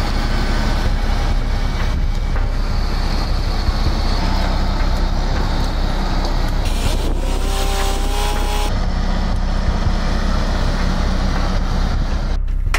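Tractor engines running steadily under load as a forestry tractor with a mulcher is pulled out of a ditch by another tractor on a cable. A brief higher whine rises over the engine noise about seven seconds in.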